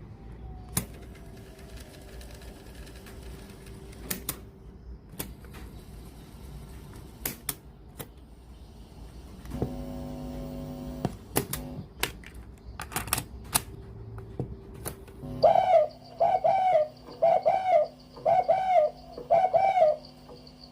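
Scattered sharp clicks and knocks, a brief steady hum just before halfway, then a bird calling five times in a row, about once a second, with each call rising and falling in pitch.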